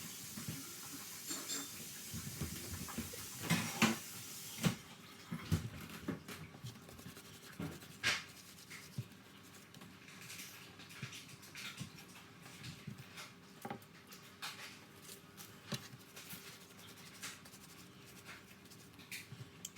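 Kitchen handling sounds during dough work: scattered light knocks and taps of utensils and a tray, with the loudest about four and eight seconds in. A faint hiss stops abruptly about five seconds in.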